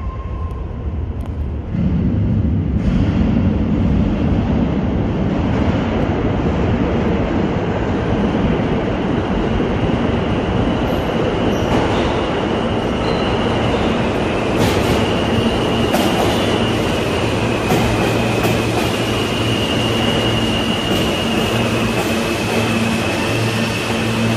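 A New York City Subway A train approaching through the tunnel and pulling into the station. A steady rumble of steel wheels on rail grows loud about two seconds in. Sharp clicks run over the rail joints, and a thin wheel squeal comes through midway as the train comes in.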